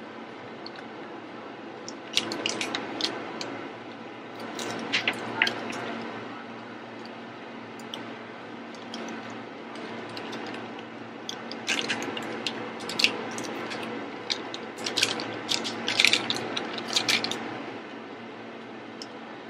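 Metal fork tines tapping and scraping on a plastic cutting board as they crimp the edge of an empanada, in several short clusters of clicks over a steady background hum.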